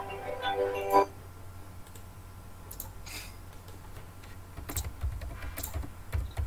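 Background music from the presented video ends about a second in; then a few scattered clicks, and light typing on a computer keyboard in the last two seconds.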